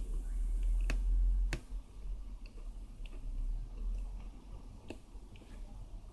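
Sharp clicks and small ticks of small parts and tools being handled, two loud clicks about a second in followed by lighter ticks, over a low hum that stops about a second and a half in.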